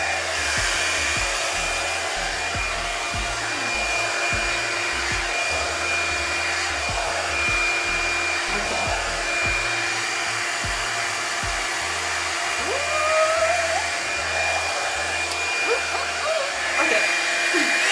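EZ Detangler blow dryer running steadily, a loud even airflow hiss with a steady whine, over faint background music with a pulsing beat.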